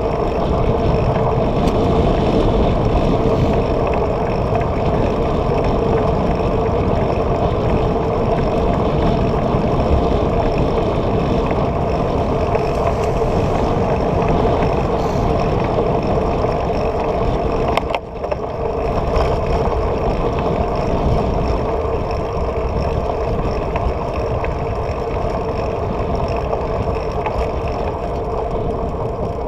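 Steady wind rush on a bike-mounted camera's microphone with tyre noise from riding on asphalt, briefly dropping off for a moment about two-thirds of the way through.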